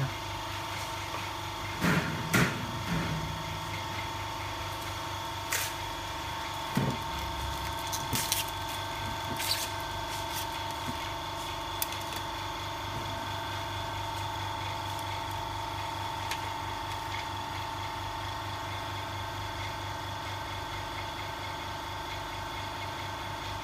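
Steady hum of a running OCA laminating machine and its vacuum supply, with a few light clicks and taps in the first half as a phone cover glass is set on the machine's aluminium vacuum plate.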